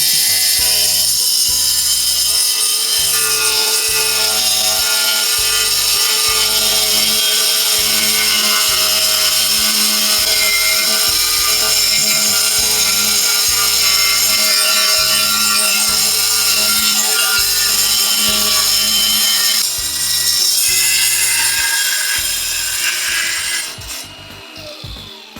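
A power tool runs continuously under background music with a steady beat. Both fade down about a second before the end.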